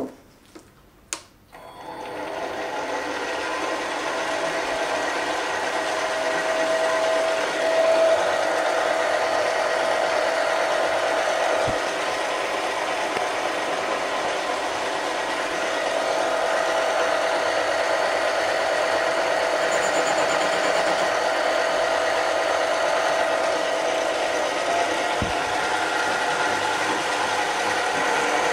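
Benchtop mini lathe switched on with two clicks, then its motor and spindle gearing speed up over a couple of seconds and run steadily, spinning a cast-iron workpiece in the chuck.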